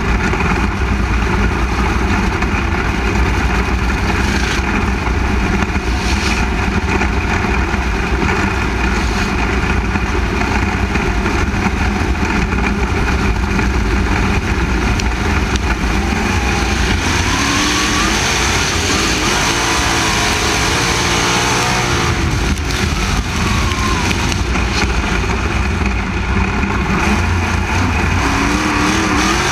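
A 360 cubic-inch sprint car V8 running loud and steady, heard close up from an onboard camera, with engine pitch rising in glides about two-thirds of the way through and again near the end as cars accelerate.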